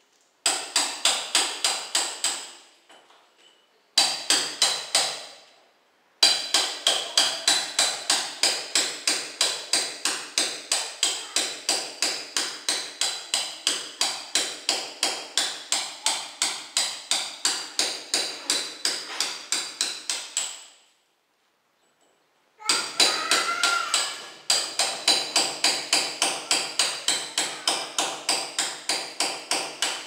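Hand hammer striking steadily, about three sharp blows a second, chipping out old tile and mortar. The blows come in long runs broken by a few short pauses.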